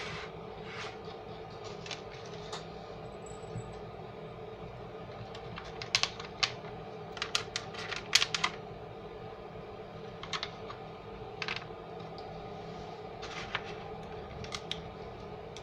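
Scattered light clicks and taps, with a busy cluster around the middle, over a steady hum.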